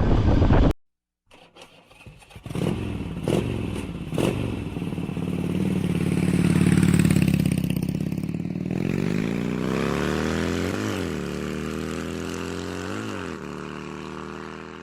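A motorcycle engine whose pitch climbs slowly and steadily for several seconds, after a few sharp clicks. Before the clicks a short loud noise stops abruptly.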